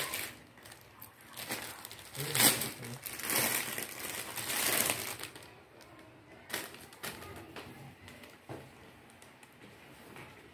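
Clear plastic shirt packaging crinkling and rustling as a T-shirt is pulled out of it, loudest in the first half, then dying down to occasional soft rustles and clicks.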